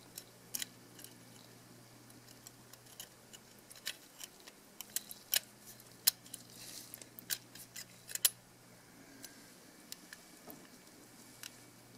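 Small irregular clicks and taps of plastic and metal camera parts being handled in nitrile-gloved fingers as the LCD screen assembly of a compact camera is worked, busiest in the middle and dying away in the last few seconds, over a faint steady hum.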